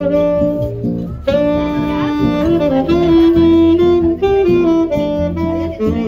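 Live saxophone playing a jazzy melody of changing held notes over a backing track with bass.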